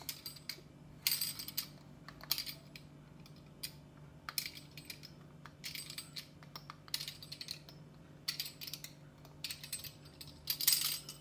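Small kitchen knife tapping and scraping on a wooden board as slits are cut into squares of dough, in short clusters of clicks about once a second, the loudest near the end. A faint steady hum runs underneath.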